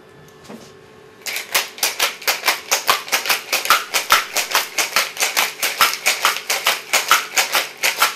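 Ice rattling hard inside a stainless steel cobbler shaker as a cocktail is shaken, a fast even rhythm of about five knocks a second. It starts a little over a second in and stops abruptly near the end.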